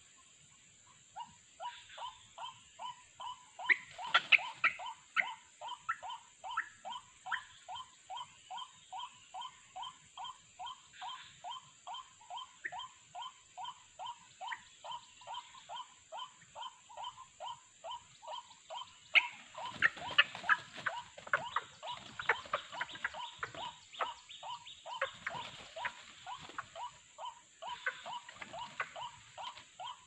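White-breasted waterhens calling: a steady run of short, falling notes, about three a second, the bird-luring call. Louder, harsher calling breaks in about four seconds in and again from about nineteen to twenty-seven seconds.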